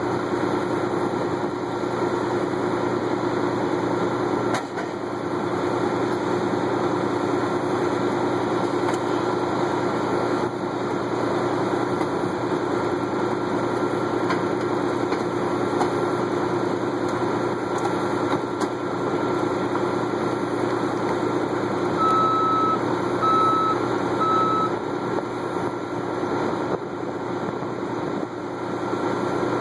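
Heavy tow truck's diesel engine running steadily under the recovery work, with three short reversing-alarm beeps about two-thirds of the way through.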